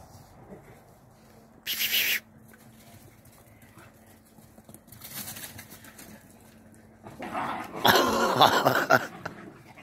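Puppies and dogs at rough play. There is a short, sharp yelp or bark about two seconds in, and a louder jumble of play noises lasting about two seconds near the end.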